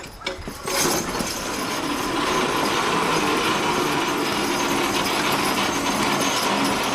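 Team of draft horses lunging into a pull with a 3,400 lb weighted sled about a second in. From there the sled scrapes and grinds steadily over the dirt track.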